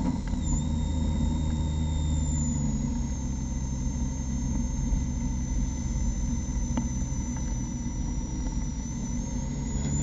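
Mazda MX-5 Cup race car's four-cylinder engine running at low revs as the car rolls slowly on almost closed throttle, heard from inside the cockpit as a steady low drone. A faint high whine sits above it, dipping slightly in pitch and coming back up near the end.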